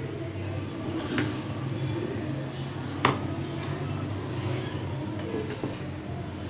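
A wooden rolling pin rolls a stuffed aloo paratha out on a stone kitchen counter, making a steady low rumble. A couple of sharp clicks come about a second and three seconds in.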